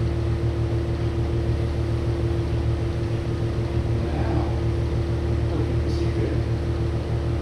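Steady low mechanical hum with a constant tone running through it, like a motor or fan running nearby.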